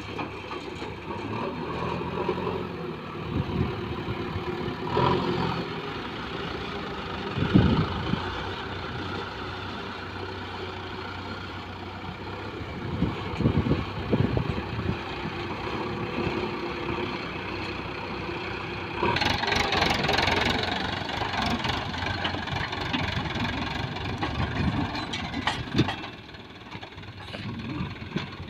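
Diesel engines of a JCB backhoe loader and a farm tractor running steadily, with a few heavy thumps as the loader bucket handles soil. The engine noise gets louder for several seconds past the middle.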